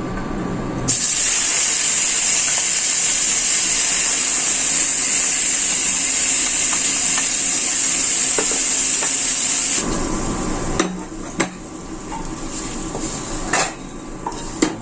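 Chilies frying in hot oil in a pan: a loud sizzle starts suddenly about a second in, then after about ten seconds drops to a quieter sizzle with clicks of a utensil stirring against the pan.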